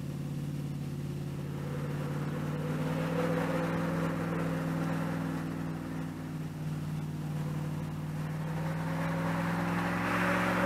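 An engine running steadily, its pitch creeping slowly higher, with a rushing hiss that grows louder near the end.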